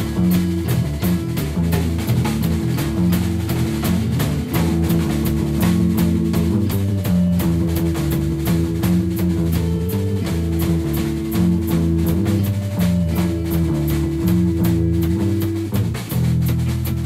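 Rock band playing an instrumental passage: electric guitar with held, recurring notes over a drum kit keeping a steady beat.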